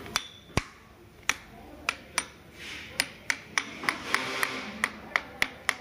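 Hammer tapping on the rear of an electric scooter to seat the aluminium cover back on. About fifteen sharp knocks, spaced out at first, then coming faster, about three a second, in the second half.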